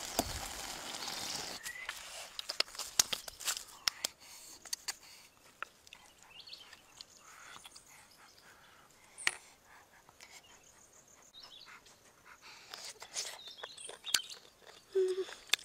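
Octopus and greens sizzling in a wok, fading out within the first second and a half, followed by scattered light clicks and scrapes of a spoon against the pan. Faint bird chirps now and then.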